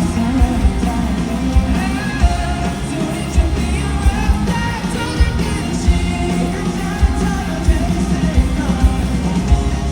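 Live rock band playing, with sung vocals over a driving drum beat.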